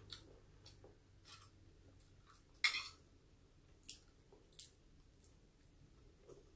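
Quiet eating sounds: chewing and small scattered mouth and finger clicks as rice is eaten by hand, with one louder short sound about two and a half seconds in.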